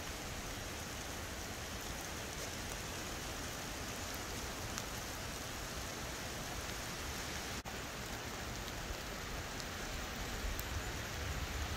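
Steady, even hiss of a wind-and-rain storm in tall conifers, broken by a momentary dropout about two thirds of the way through.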